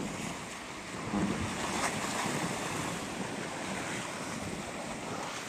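Ocean surf breaking and washing on the shore, with strong wind buffeting the microphone.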